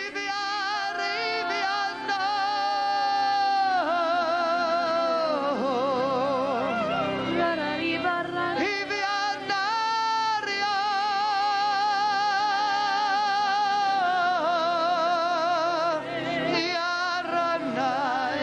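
Congregation singing in the spirit: several voices hold long, wavering notes without clear words over sustained instrumental chords.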